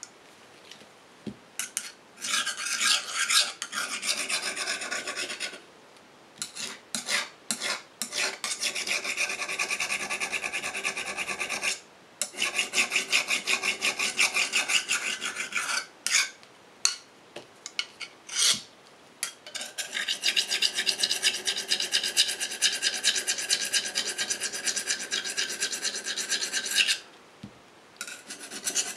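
Rapid back-and-forth scraping of a small hand-held abrasive stick on the flat steel blade of a worn, saw-backed knife, polishing the blade by hand. The strokes come in several runs a few seconds long, with short pauses and a few single strokes in between, and carry a slight ringing metallic edge.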